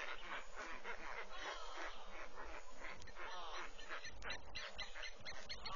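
Many birds calling and chattering over one another in a dense, continuous chorus, with a few low bumps about four seconds in.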